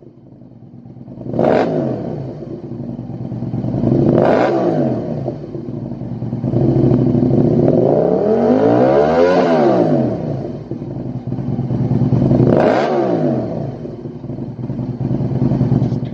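Aprilia RSV1000's V-twin engine running through a Lextek XP8C carbon-fibre silencer, idling and revved: quick blips about a second and a half in and around four seconds, a longer climb held near the middle before falling back, and another sharp blip near the end.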